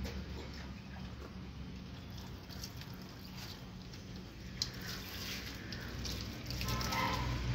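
Water poured from a plastic jug over a cat being bathed, splashing on and off, over a steady low hum.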